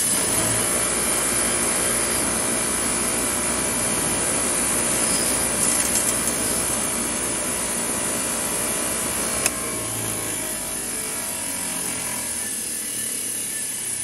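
Bench grinder running steadily while a steel gearbox bolt is held against the spinning wheel, grinding the dirt off its threads. One sharp click about nine seconds in.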